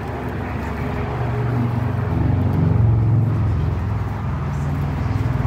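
Road traffic passing on the bridge roadway, a steady low rumble with one vehicle swelling loudest about halfway through, then easing off.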